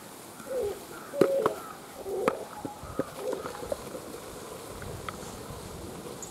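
Dal poured into an aluminium pot and stirred with a wooden spatula, giving a few sharp knocks of wood against the pot between about one and three seconds in, then settling to a steady background.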